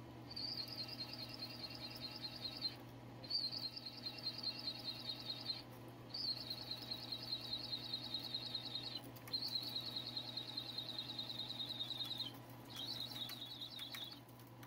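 Drill press cutting a hole in a metal part with a large twist drill: a high squeal with a fast chatter in it, coming in five stretches of two to three seconds with short breaks between, over the steady hum of the drill press motor.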